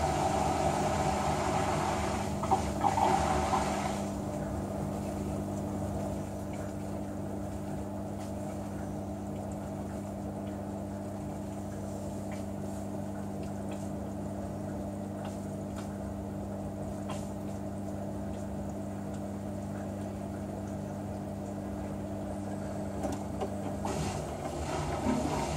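Hotpoint Ultima S-Line washing machine's drain pump humming steadily as it empties the wash water, with water rushing through for the first few seconds. Near the end the pump hum stops and the drum starts turning with the wet load, before the first spin.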